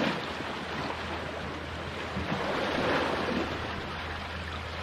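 Sea waves washing against and around rocks, with wind rumbling on the microphone.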